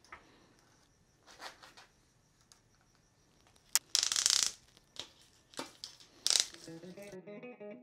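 Old wiring-harness sleeve and tape being cut, torn and peeled off the wires by hand: rustling and crinkling, a sharp click about four seconds in followed by a loud half-second tear, another tear near six seconds. Near the end, guitar music comes in.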